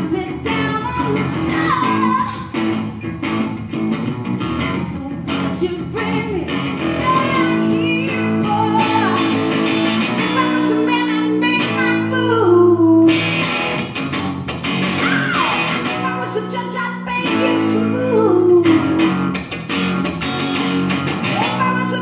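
Live rock band playing, led by electric guitar, with a woman singing.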